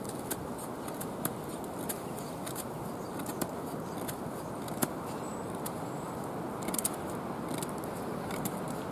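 Winchester outdoor knife shaving thin curls off a half-dry pine stick to make a feather stick: a run of short scraping strokes with small clicks and crackles of wood.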